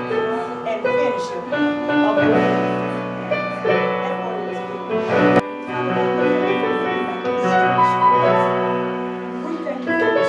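Church keyboard playing held chords that change every second or two, with voices calling out over it now and then.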